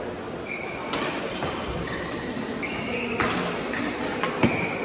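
Badminton rackets striking a shuttlecock, a few sharp hits with the loudest near the end, and short high squeaks of shoes on the court floor between them.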